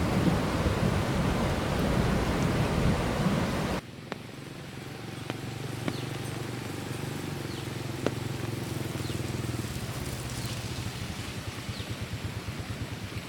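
Heavy rain pouring down, cut off abruptly about four seconds in. It gives way to a quieter background with a low steady hum and a few scattered clicks.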